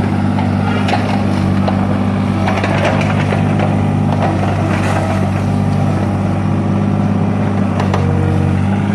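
Tata Hitachi mini excavator's diesel engine running steadily under load as it works its bucket through wet mud, with a few short knocks scattered through it.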